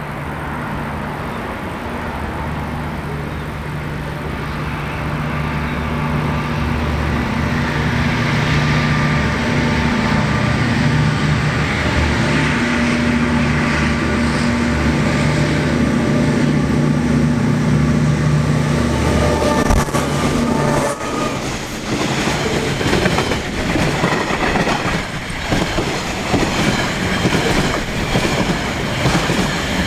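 A freight train locomotive approaches with a steady engine drone that grows louder for about twenty seconds, then passes close by. The container wagons follow, their wheels clicking rhythmically over the rail joints.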